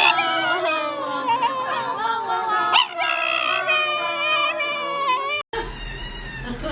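A dog howling in long, wavering cries that slide up and down in pitch. They cut off suddenly about five and a half seconds in, and a low hum follows.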